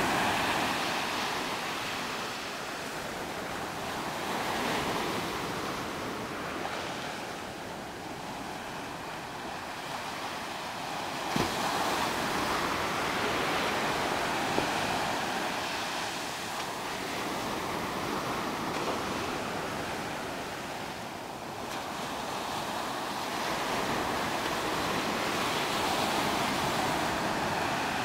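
Ocean surf breaking and washing up the beach, a steady rush that swells and ebbs every few seconds. Two short knocks come about halfway through.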